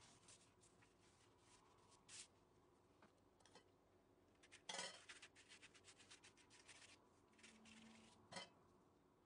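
Quiet kitchen-utensil sounds: a metal spoon clinks once about halfway, followed by a red silicone pastry brush spreading melted butter over a sheet of phyllo dough in quick short strokes, with another light knock near the end.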